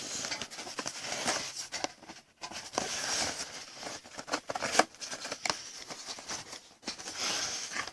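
Rustling, crinkling and small clicks of hands working at a sealed trading-card hobby box, pulling at its wrapper and cardboard as it resists opening.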